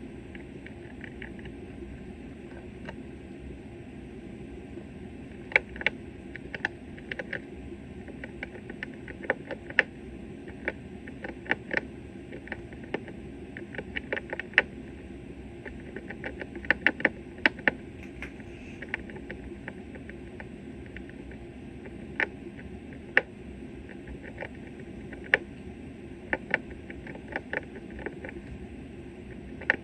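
Irregular sharp clicks and light taps, some in quick clusters, starting about five seconds in, over a steady low background noise.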